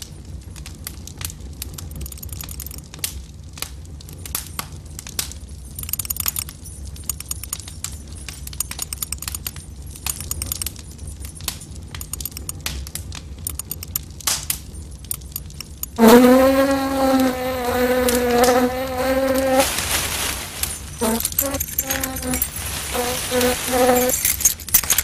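Cartoon soundtrack: a run of small clicks and crackles, then about sixteen seconds in a loud voice-like note held for about three seconds, followed by a few short notes at the same pitch.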